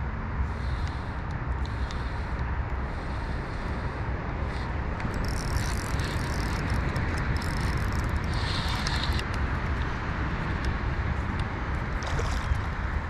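Steady wind rumble buffeting the microphone while a spinning reel is cranked against a hooked bass, with brighter clicking and whirring from about five to nine seconds in and a splash of the fish at the surface near the end.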